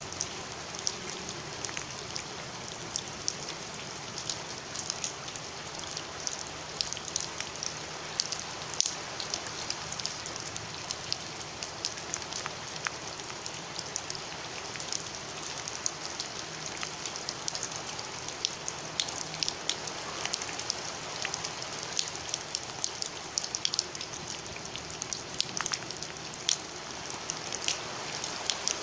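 Heavy rain falling on wet stone paving: a steady hiss dotted with many sharp splashes of single drops.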